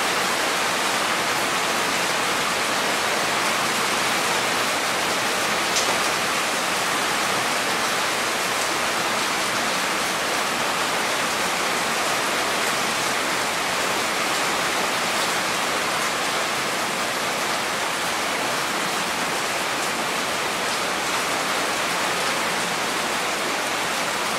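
Heavy rain falling steadily, a dense even hiss of drops on leaves, lawn and ground, with one sharper drop tick about six seconds in.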